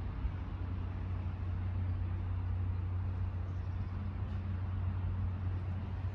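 Steady low rumble with a light hiss: outdoor background noise, with no clear single source.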